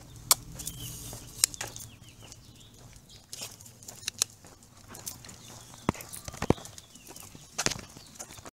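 Footsteps and irregular sharp clicks on a concrete sidewalk while a small dog is walked on a leash, over a low steady hum.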